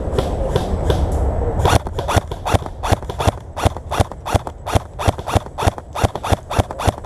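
A person running, quick regular footsteps about three a second, starting about a second and a half in after some rustling.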